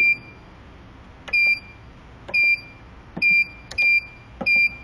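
Keypad of an Arojet MP-258 inkjet coding printer beeping as letters are typed in: five short, identical high-pitched key beeps at uneven intervals.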